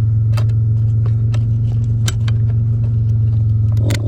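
12-volt air compressor running with a steady low hum, switched on as soon as its leads were connected to the battery. A few faint clicks sound over it.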